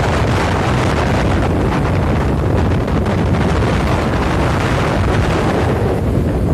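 Wind buffeting the microphone: a loud, steady rush with a heavy low rumble.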